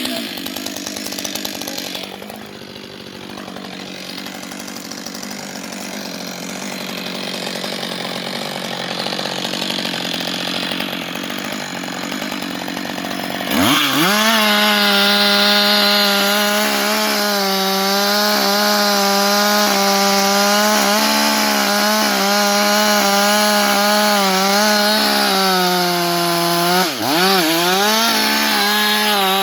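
Husqvarna 560XP two-stroke chainsaw. The first half is a rough, rushing noise with no clear engine pitch. About halfway it cuts abruptly to the engine running at a high, steady pitch, which drops briefly near the end and climbs straight back.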